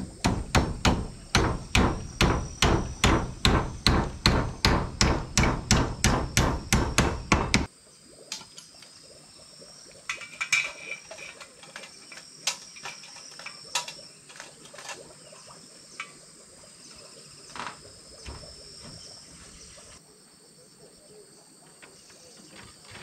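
Hammer driving nails into the wooden steps of a plank cabin: a quick, even run of about three strikes a second that stops abruptly after some seven and a half seconds. Insects keep up a steady high buzz, with a few scattered light knocks after the hammering.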